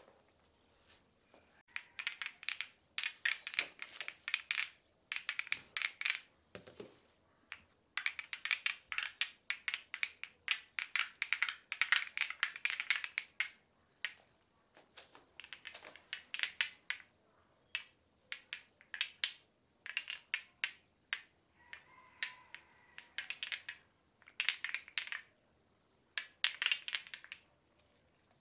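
Massage percussion on bare skin: hands clasped together tapping quickly on the client's arm, making runs of fast, sharp pats that each last a second or two with short pauses between.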